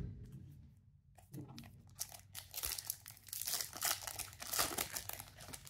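A foil-lined Topps Chrome Platinum baseball card pack wrapper torn open and crinkled by hand: dense, irregular crackling that starts about a second in.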